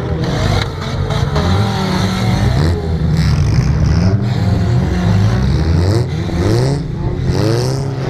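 Several wreck-race cars' engines revving hard on a dirt track. The engine pitch rises and falls again and again as the cars accelerate and lift off, several engines overlapping.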